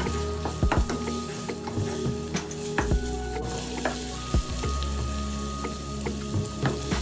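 Food sizzling in a hot pan while being stirred, with frequent sharp knocks of a utensil against the pan, over background music.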